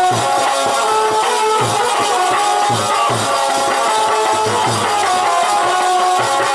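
Live folk music: a harmonium holding sustained notes over a steady, repeating drum beat.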